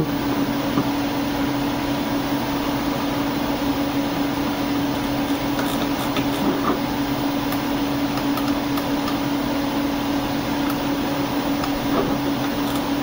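A steady machine hum with one constant low tone and an even hiss, such as a computer's cooling fan or drive, with a few faint clicks here and there.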